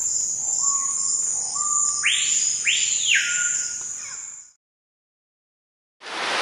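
Tropical forest ambience: a steady high insect drone with bird whistles, a few short rising notes and then two loud arching whistles about two to three seconds in. It fades out about four and a half seconds in, and after a short silence a steady rushing hiss like rain starts near the end.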